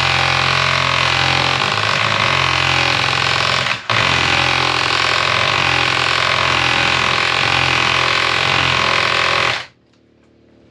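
Handheld power hammer running loudly as it drives a rove punch, setting a copper rove down over a copper boat nail. It stops briefly about four seconds in, starts again and cuts off near the end.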